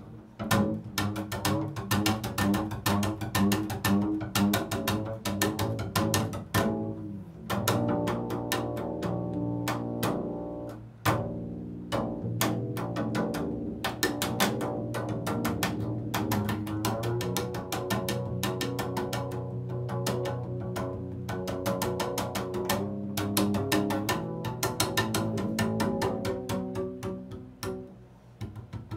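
Solo double bass played with a bow in an improvised passage: rapid, short, sharp strokes on the strings over ringing low notes, with a brief pause about eleven seconds in.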